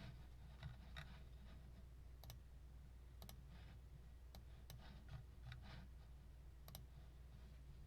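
Faint, irregular clicks, about a dozen, over a low steady hum.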